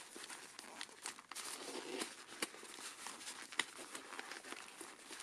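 Faint rustling and crinkling of packaging as the faux-leather padded cuff and its paper band are handled, with scattered small clicks and taps.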